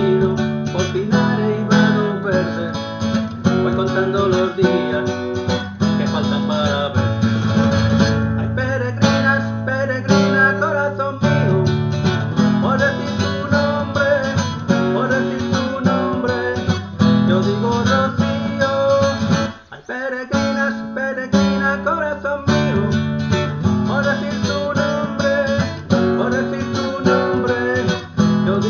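Acoustic guitar music in rumba flamenca style: a strummed rhythm with a melody line over it. The music drops out briefly about two-thirds of the way through.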